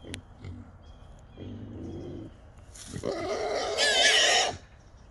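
Small feral hogs caught in a trap: a low grunt, then a loud, harsh squeal of nearly two seconds that grows louder before cutting off.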